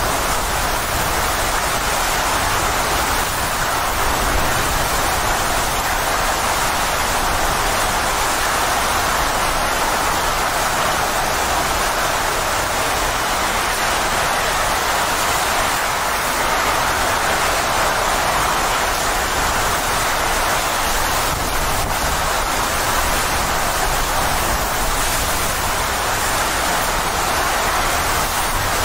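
Hurricane-force wind and heavy rain, a steady, dense rushing noise that does not let up, with an uneven low rumble of wind buffeting underneath.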